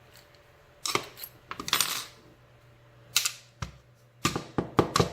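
Metal parts of a Master Lock 7050 padlock clinking and clattering as it is taken apart, in a string of sharp knocks and short rattles that come thicker near the end.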